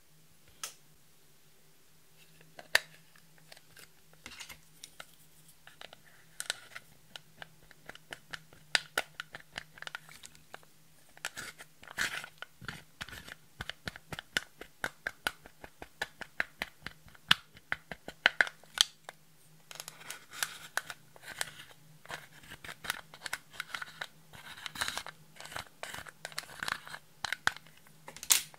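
Pressed powder makeup being crushed and scraped in its plastic compact with a plastic stick: a dense, irregular run of quick crackly scratches and clicks, sparse at first and thicker from a few seconds in.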